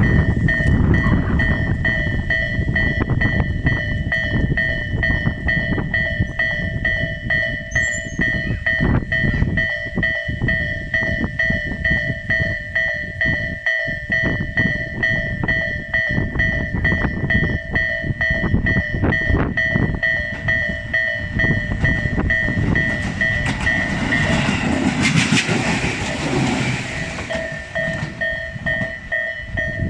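Japanese level-crossing alarm ringing steadily while a Tobu 8000-series electric train runs through the crossing, its wheels clicking over the rail joints, with wind rumbling on the microphone. The train is loudest about three-quarters of the way through, and the crossing alarm stops near the end.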